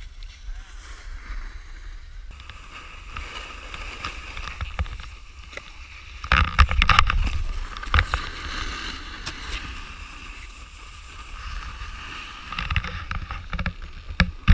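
Snowboard edges scraping and carving over packed snow, with wind rumbling on the action camera's microphone. The scraping swells loud with sharp clicks about six seconds in, and again near the end.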